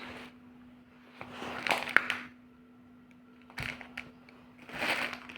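Grocery packages being handled: a few short rustling bursts, a sharp tap about two seconds in and a dull knock in the middle as an item is set down, over a faint steady hum.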